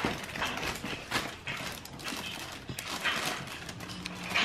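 Plastic wrapping rustling and crinkling in irregular bursts, with a few light knocks, as a backpack is lifted out of it and turned over in the hands.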